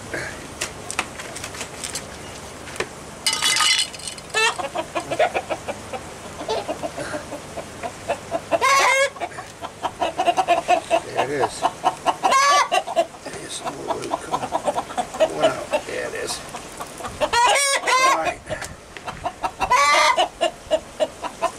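Backyard chickens clucking in quick runs of short notes, with a louder drawn-out cackle every few seconds (about five in all).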